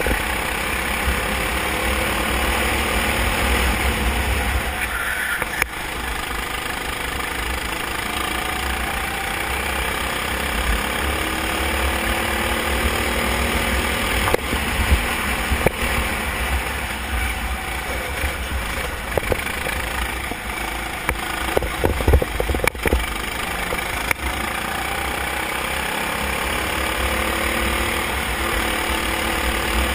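Onboard sound of a Honda-engined racing kart running at speed, its engine pitch rising and falling through the corners and straights. A few short knocks sound about two-thirds of the way through.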